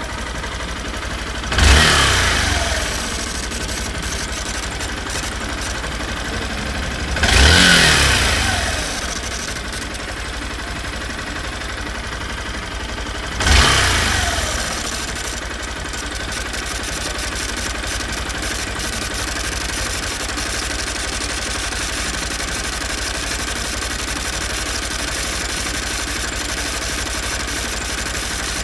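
Honda Bros 160's single-cylinder engine idling, its throttle blipped three times with the revs falling back to idle after each. It carries the internal engine noise the owner complains of, a noise that came on after the worn piston was replaced with original parts.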